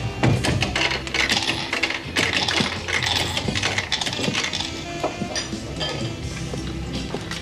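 Bar clatter: a run of light clinks and clicks over background music.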